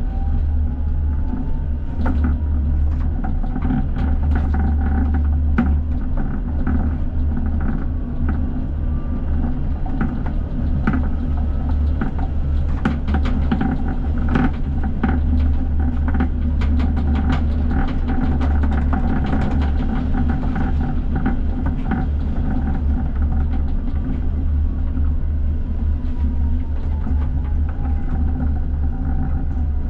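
ČKD Tatra T6A5 tram running, heard from the driver's cab: a steady low rumble with the traction motor whine rising as it speeds up in the first couple of seconds and falling as it slows near the end. Through the middle, sharp clicks and knocks of the wheels over the rails.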